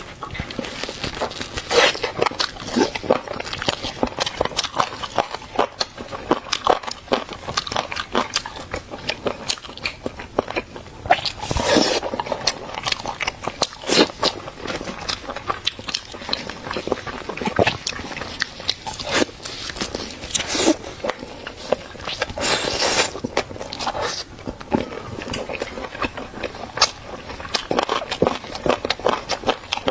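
Close-up biting and chewing of food, with many short crisp crunches and crackles following one another irregularly.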